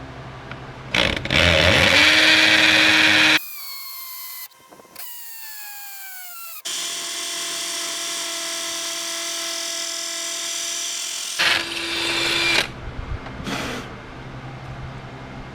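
Hammer drill boring pilot holes into a concrete header in hammer mode. The motor spins up to a steady pitch and winds down in falling pitch, then runs again in a long steady stretch. Near the end come a loud burst and a few short blips of the trigger.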